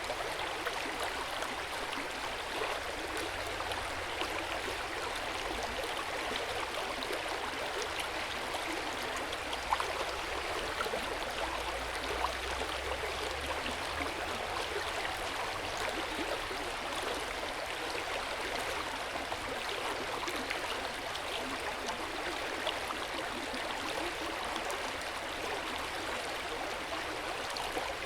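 Hot-spring water pouring steadily into an open-air bath, a continuous splashing and trickling with a few small drops and slightly louder splashes now and then.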